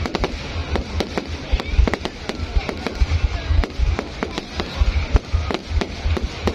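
Fireworks going off in rapid, overlapping bangs at irregular intervals, several a second, with a deep low rumble beneath.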